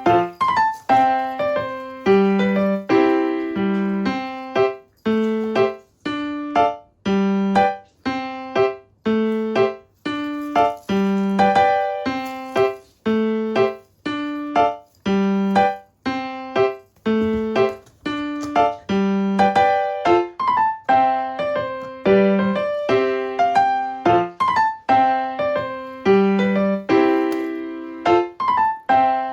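Background music: a gentle piano melody with evenly paced notes.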